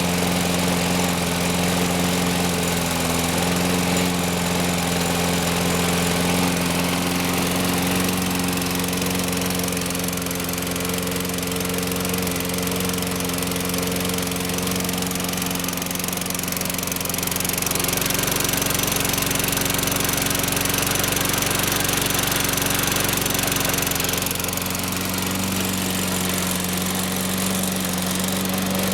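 Toro Recycler 20016 lawn mower engine running just after a cold start, "real cold". It runs steadily, its pitch dropping and coming back up a few times.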